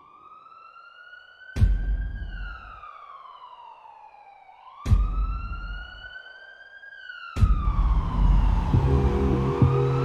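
Police siren wailing, slowly rising and falling in pitch, cut by three heavy low hits a few seconds apart. Music with low notes comes in under it near the end.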